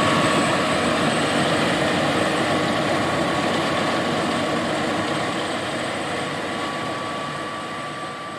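John Deere S780 combine harvester running while harvesting soybeans: a steady mechanical din with a high, even whine, gradually fading.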